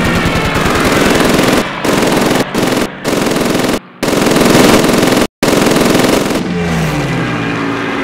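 Rapid machine-gun fire in long bursts, broken off by several abrupt cuts. Near the end the firing gives way to a low pitched tone sliding downward.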